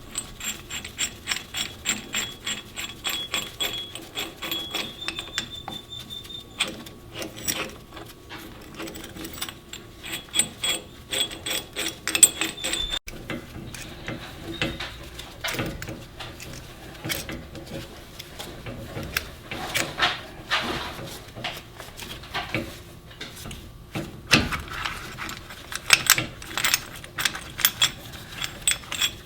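Ratchet clicking in quick runs of evenly spaced strokes, with short pauses between runs, as it turns a brake caliper piston retractor's threaded drive to push a front brake caliper piston back into its bore.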